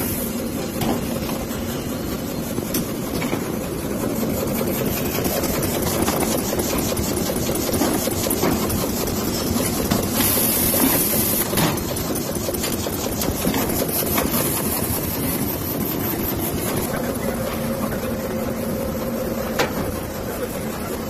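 Automatic high-speed roll bag cutting machine running: a steady mechanical hum with quick, repeated clicks from its cutting and feeding action.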